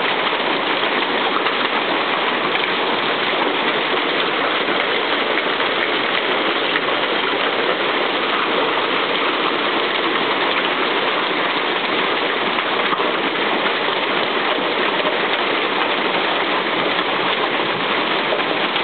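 Hailstorm: hailstones falling thickly and striking the ground, roofs and trees in a steady, dense rush of sound.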